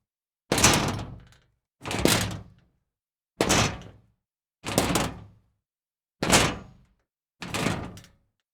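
Scrap metal being kicked: six separate hits, roughly one every second and a half, each a sharp clank that rings out and dies away before the next.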